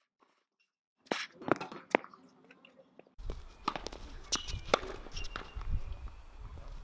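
Tennis rally on a hard court: sharp racket-on-ball hits and ball bounces, with footsteps on the court. The first second is near silent, and from about three seconds in, wind rumbles on the microphone under the hits.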